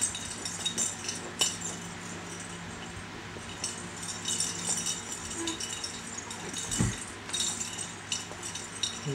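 Loose pieces rattling inside a clear plastic toy rattle ball as it is jiggled and kicked, in several bursts of fine rattling, with one dull thump about seven seconds in.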